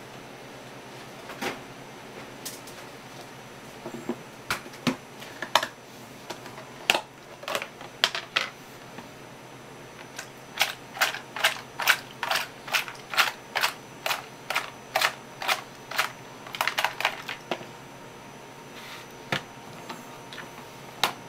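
Sharp clicks and light knocks of hard crab shell pieces and a serving utensil against a plastic container: scattered at first, then a steady run of about two clicks a second, then a quick cluster.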